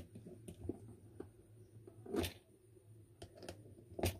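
Faint handling sounds of wiring a plastic switchboard: small clicks and taps of copper wire and a small screwdriver on the brass screw terminals, with two louder handling noises, about two seconds in and near the end, over a low steady hum.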